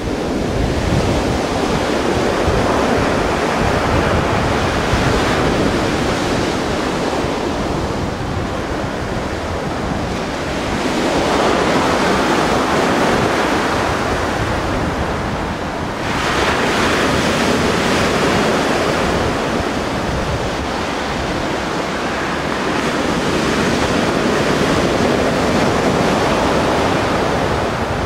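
Mediterranean sea surf washing in and out, rising and falling in long swells every several seconds, with wind rumbling on the microphone.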